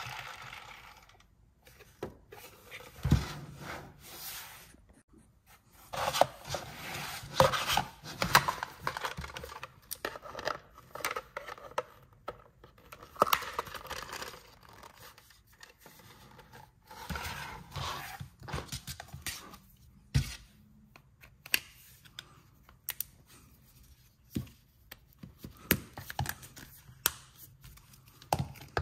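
A toy launcher's spinning plastic wheel whirring down and stopping about a second in. Then hard plastic toy parts are handled and fitted together: irregular clicks, taps and scrapes, with a few sharper knocks.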